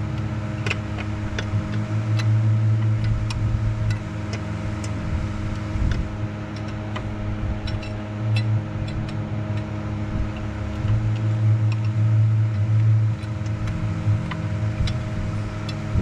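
Steady machine hum that swells and eases every few seconds, with scattered light clicks and taps of hand tools working on the engine.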